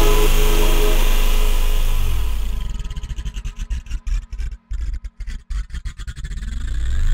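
Electronic trap beat with heavy sub-bass. After about two seconds the full beat drops away into a rapid stuttering, chopped-up break, and a rising pitch sweep near the end builds back into the full beat.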